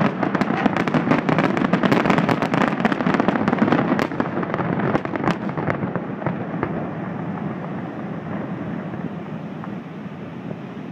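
Fireworks display ending in a dense barrage of rapid crackling bangs. About four seconds in they thin out to a few scattered reports, and the rumble dies away.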